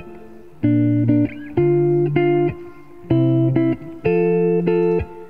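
Background music: guitar chords struck in a repeating pattern, in short blocks with brief gaps between them, stopping near the end.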